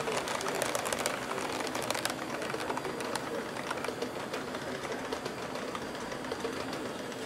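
HO-scale model freight train of open-top coal cars rolling along the track, its wheels clicking rapidly and irregularly over the rail joints over a steady rolling noise. The clicks thin out after a couple of seconds as the cars pass by.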